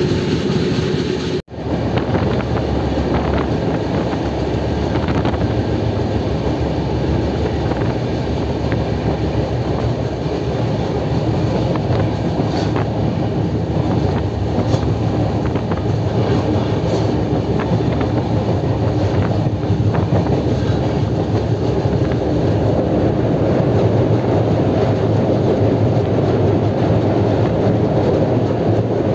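Passenger train in motion: the steady rumble and rush of an LHB coach running on the rails, with scattered light clicks. The sound cuts out for an instant about a second and a half in.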